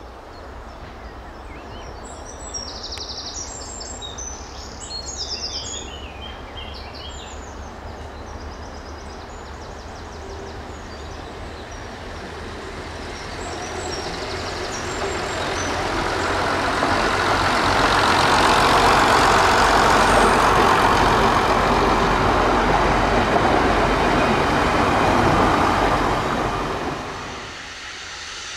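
Three-car BR Class 108 diesel multiple unit approaching and passing close by, its underfloor diesel engines and wheels on the rails building to a loud peak past the middle and then dropping away near the end. Birds chirp in the first few seconds.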